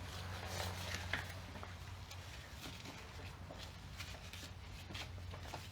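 Light scattered clicks and taps of wheel bolts being threaded by hand into the hub, over a steady low hum.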